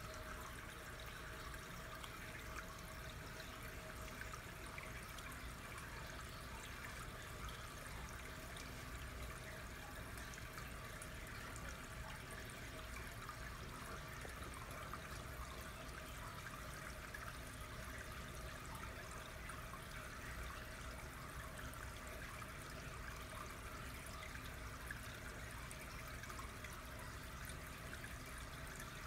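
Water running steadily through a two-current choice flume: an even, unbroken flow that stays the same throughout.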